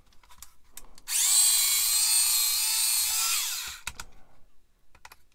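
Small handheld rotary drill spinning up with a high whine about a second in, running for a couple of seconds as it elongates a hole in a plastic model part, then winding down with falling pitch. A few light clicks follow near the end.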